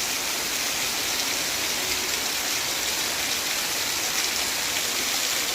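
Heavy rain falling steadily in a backyard, an even hiss of rain on the ground and surfaces.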